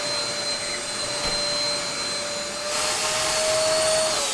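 Dyson upright vacuum cleaner running with a steady motor whine and rush of air, the air noise growing louder about three seconds in. Near the end it is switched off and the whine starts to fall as the motor spins down.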